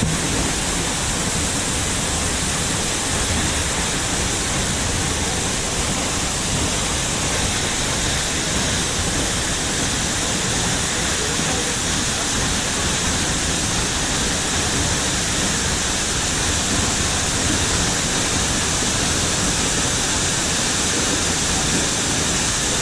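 Sikulikap waterfall, about 25 metres high and in heavy flow, giving a steady, unbroken rush of falling water.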